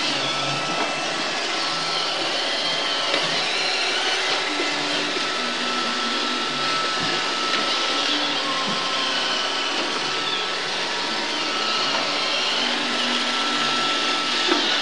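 iRobot Roomba 555 robot vacuum running steadily: a constant hiss with a thin steady whine, and a low hum whose pitch shifts now and then.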